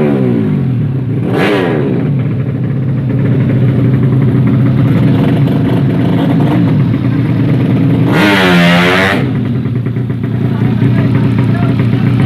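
Tuned underbone motorcycle engines: one runs steadily throughout, a bike goes by with falling pitch about a second and a half in, and a loud burst of high revving lasts about a second near eight seconds in.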